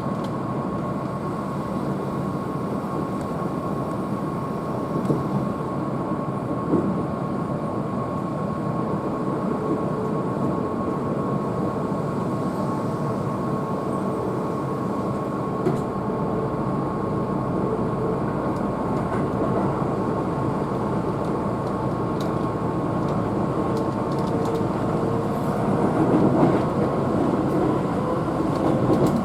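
Keihan electric train running at speed, heard from inside the car: a steady rumble of wheels on rail with a thin constant whine. A motor whine slowly rises in pitch over the second half, with a few brief knocks along the way.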